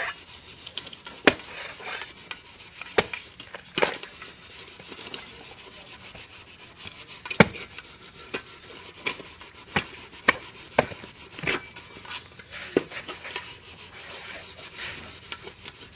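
Heavy knife chopping and shaving the husk of a green coconut to open it: a dozen or so sharp strikes at irregular intervals, over steady scraping of blade on husk.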